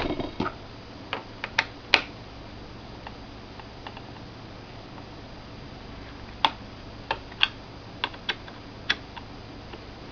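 Small Phillips screwdriver clicking and tapping against the screws and plastic hard-drive panel on the underside of a Toshiba Satellite laptop as the screws are loosened: about a dozen light, irregular clicks, bunched in the first two seconds and again in the second half.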